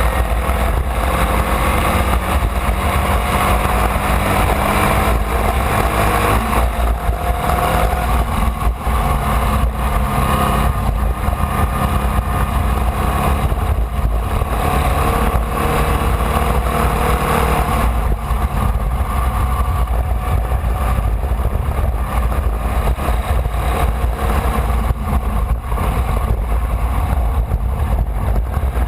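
Formula Vee race car's air-cooled Volkswagen flat-four engine running hard at racing speed, its pitch climbing and dropping with the throttle and gear changes, over a heavy constant rumble of wind buffeting on an onboard camera.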